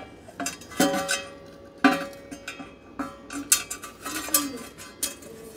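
Screws and hand tools clinking and clattering against steel, a string of sharp metallic clinks; one, about a second in, rings on briefly.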